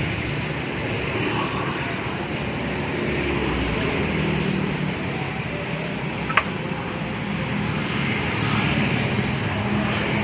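Street traffic passing a roadside stall: motorcycles and cars make a steady rumble, with one short sharp click about six seconds in.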